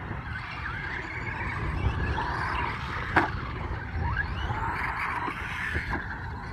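Traxxas Slash RC trucks running around a dirt track, their motors' pitch rising and falling with the throttle, over a steady low rumble. A sharp knock about three seconds in.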